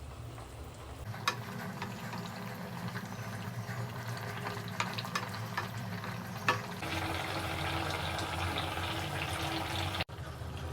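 Steady watery hiss of kitchen cooking, with a few sharp utensil clicks. The sound changes about seven seconds in and cuts off abruptly near the end.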